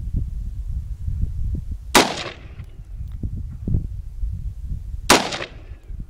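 Two rifle shots from a .223/5.56 rifle, about three seconds apart, each with a short echo. Neither sets off the Tannerite target. A steady low rumble runs underneath.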